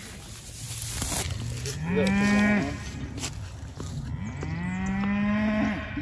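Highland cattle mooing twice, each moo rising in pitch at the start and then held, the second longer.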